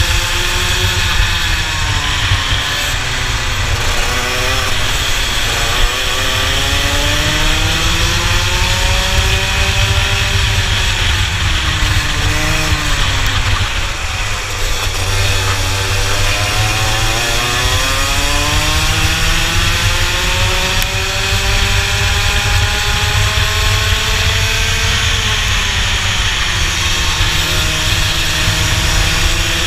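Rotax 125 cc two-stroke kart engine at race speed, heard onboard. Its pitch falls into each corner and climbs again down the straights, about four times over, with wind rumbling on the microphone underneath.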